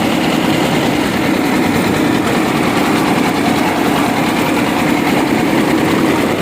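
Diesel engine of a mobile rice mill running steadily under load, driving the milling machinery as the rice is processed; a dense, even mechanical drone with a rapid fine pulse.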